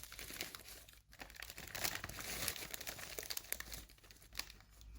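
Crinkling of food packaging being handled and opened to unwrap a bakery pastry, irregular crackles that thin out near the end.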